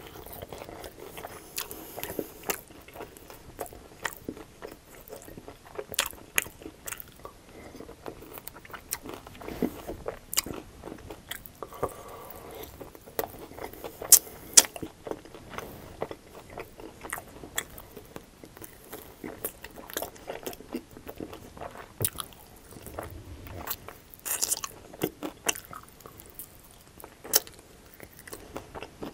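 Close-miked biting and chewing of crunchy breaded, sauced chicken wings: irregular sharp crunches with chewing between them.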